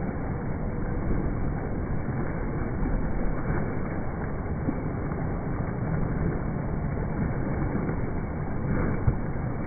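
Steady, low churning splash of a swimmer's flutter kick with a kickboard in an indoor pool, with one short knock near the end.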